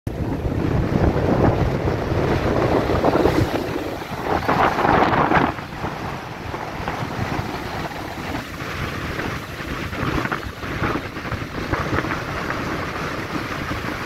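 Rough sea surf breaking against a concrete jetty and washing over it, with wind buffeting the microphone. It is loudest over the first five seconds or so, then settles to a steadier, lower wash.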